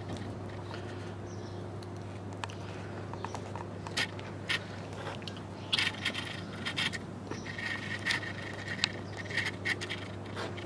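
Scattered small clicks and scrapes of a child eating roasted ribs with her fingers, pulling meat from the bone on a wooden board, over a steady low hum; the clicks come thicker in the second half.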